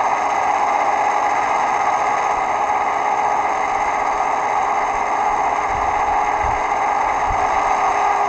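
ESU LokSound 5 sound decoder playing a China Railway DF4B diesel locomotive's engine sound, running steadily with a held whine over a hissing rumble. A few low thuds come between about five and seven and a half seconds in.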